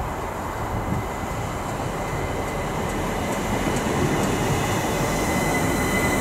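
Southeastern Class 375 Electrostar electric multiple unit running into the platform and slowing, a steady rumble that grows gradually louder. A thin high squeal of the brakes becomes clearer near the end as it draws to a stop.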